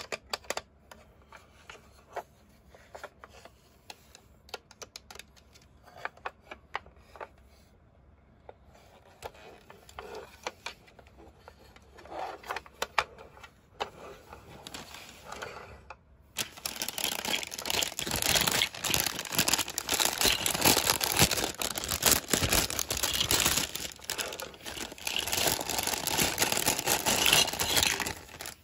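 Hard plastic toy parts clicking and tapping now and then as they are handled, then from a little past halfway a long stretch of thin clear plastic wrapping crinkling loudly.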